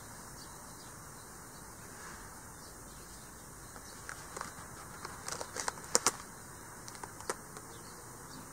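A heavy page of a spiral-bound sketchbook is turned by hand: a short run of paper crackles and rustles, loudest about six seconds in, over a steady faint hiss.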